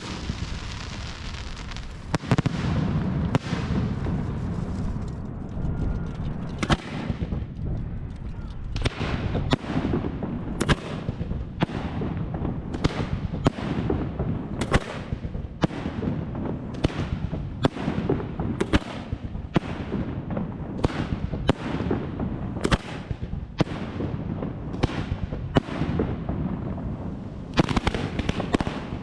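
Aerial fireworks display: a dense crackling barrage, then a steady, evenly spaced run of sharp bangs a little over one a second over a low rumble. Dense crackling returns near the end.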